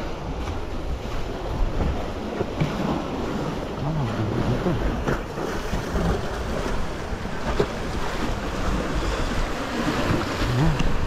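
Wind buffeting the microphone in uneven gusts, over the wash of small waves breaking on a sandy shore.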